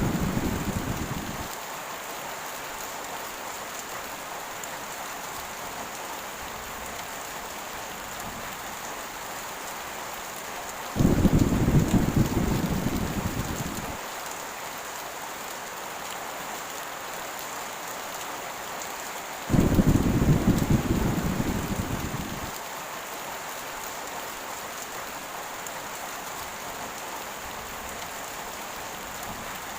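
Steady heavy rain with thunder: a rumble dying away at the start, then two more rumbles about 11 and 20 seconds in, each starting suddenly and fading over about three seconds.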